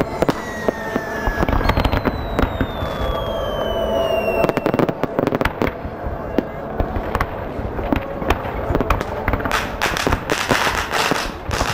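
Fireworks display: a dense, continuous crackling and popping of crackle and strobe stars, with two whistles falling in pitch over the first few seconds. The crackle thickens near the end.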